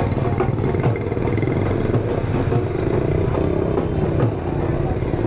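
Motorcycle engine running steadily at low speed, with street clatter around it.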